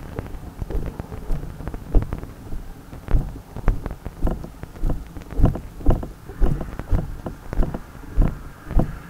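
A firefighter's boots walking through snow, heard from a helmet-mounted camera. There is rustling and a few knocks at first, then steady footfalls about twice a second from about three seconds in.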